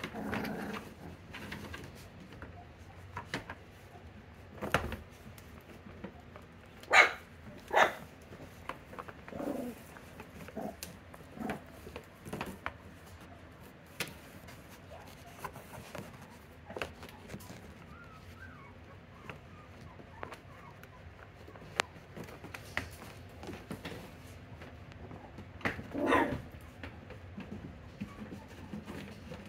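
F1B mini Bernedoodle puppies at play, giving scattered short yips and barks. Two sharp ones come close together about seven seconds in, and another loud one near the end.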